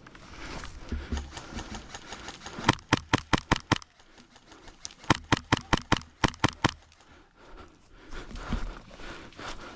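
Airsoft replica firing two quick strings of shots, about seven a second, the first near the three-second mark and the second about two seconds later. Rustling of movement fills the gaps.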